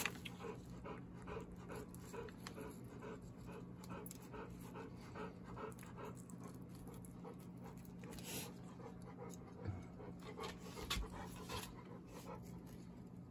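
Rapid rhythmic panting, about three breaths a second, over a steady low hum. A few light scrapes and taps of a fillet knife working on the fish come in the second half.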